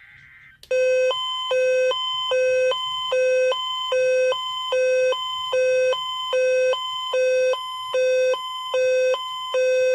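Emergency Alert System attention tone broadcast over the radio: two pitches alternating high and low about every 0.4 s, starting abruptly under a second in. It signals a severe thunderstorm watch.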